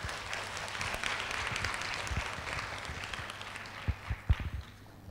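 Audience applauding, dying away about four and a half seconds in. A few dull thumps near the end, one of them the loudest sound.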